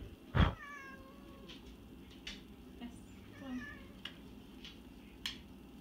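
A thump about half a second in, followed by a high animal call that falls in pitch, and a second shorter call about three and a half seconds in. A few sharp clicks are scattered through.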